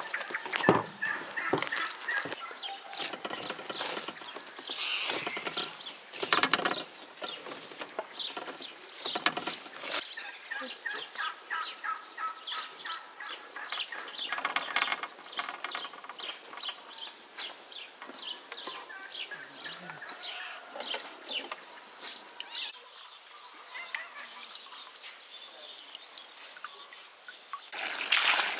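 Domestic fowl clucking and calling over and over, with a few sharp knocks in the first ten seconds. About a second before the end, water starts gushing from a hose into a bucket.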